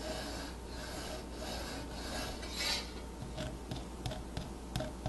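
Pencil drawing layout lines on ash wood along a steel rule: a series of short scratchy strokes, followed by a few light taps and clicks from the second half on.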